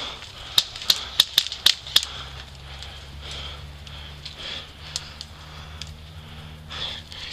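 AK-style airsoft rifle firing a quick string of about six single shots, sharp clicks roughly four a second, then a couple of fainter shots a few seconds later.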